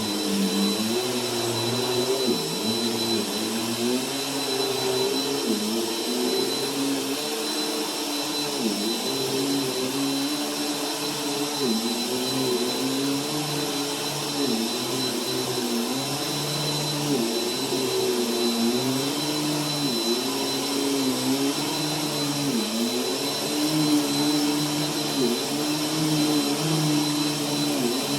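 Bissell vacuum cleaner running over carpet, its motor pitch dipping and recovering over and over as it is pushed back and forth, over a steady airflow hiss and a thin high whine.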